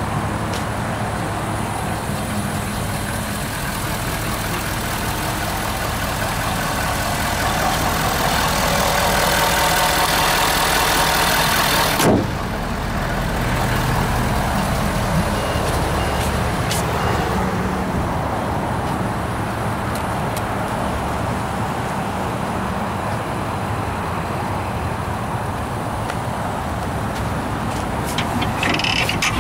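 Ford 6.7L Power Stroke V8 turbodiesel idling steadily, with a single sharp knock about twelve seconds in.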